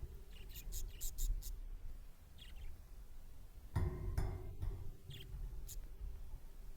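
Budgies chirping: a quick run of short, high chirps about a second in, then scattered single chirps and a louder warbling call about four seconds in.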